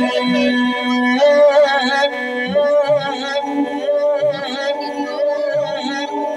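A man singing a naat into a microphone, his voice amplified through a sound system, in long ornamented phrases that waver in pitch over a steady held tone.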